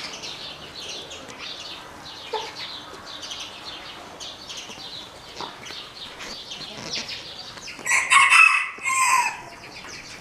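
A rooster crowing once, loud, near the end, in two parts, with the last note falling away. Steady high chirping of birds runs underneath.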